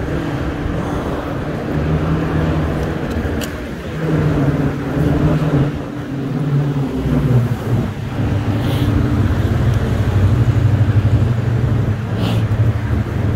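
City street traffic, with a heavy vehicle's engine running as a steady low drone that shifts in pitch a few times.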